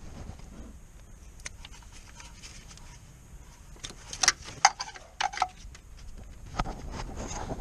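Hand-work noise in a car's engine bay: rustling and handling, with a quick cluster of sharp clinks about four to five seconds in, and more rummaging near the end.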